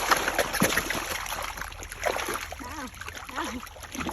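Water splashing and trickling at a pond's surface as walking catfish feed there, in quick irregular splashes.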